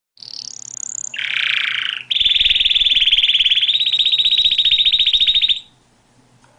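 Domestic canary singing: a short rising phrase, then a buzzy note, then a long rapid trill that stops abruptly about five and a half seconds in.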